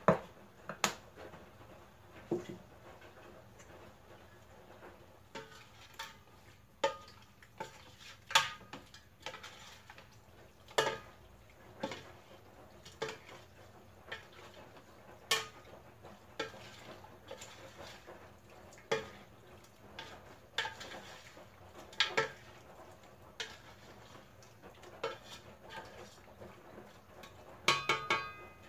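A spoon knocking and scraping against the side of an aluminium cooking pot while stirring chicken pieces: irregular clinks about once a second, a few with a brief metallic ring, and a quick cluster of ringing knocks near the end.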